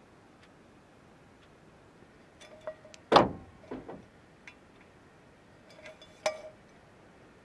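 Metal camping mug and wire hooks clinking as the mug is hung on a clip hanger: a loud clink with a short ring about three seconds in and a second cluster of clinks about six seconds in. A clock ticks faintly about once a second underneath.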